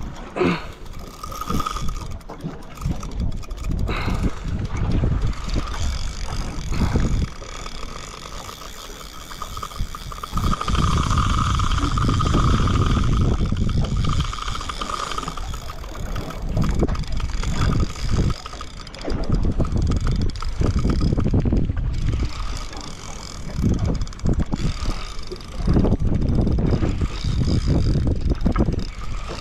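Wind buffeting the microphone in uneven gusts over a low rumble, with a faint steady whine that swells about ten seconds in and fades a few seconds later.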